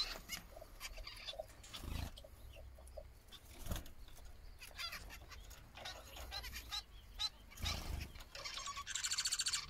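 Small aviary birds chirping: scattered short calls and chirps from finches, with a few low thumps. Near the end a fast, buzzy trill begins.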